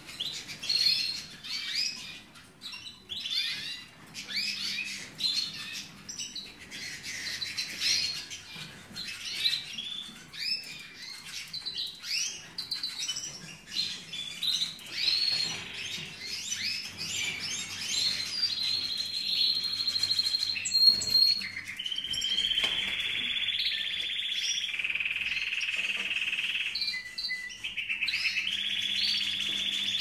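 Caged canaries chirping in many quick short calls. In the second half a canary sings long, even rolling trills, which become the loudest sound.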